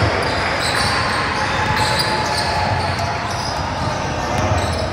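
Sounds of a basketball game in a gym: a ball bouncing on the court amid steady background chatter, echoing in the large hall.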